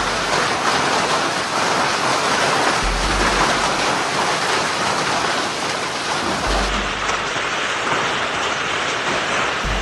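Heavy rain pouring steadily, a dense even hiss, with dull low thumps every few seconds.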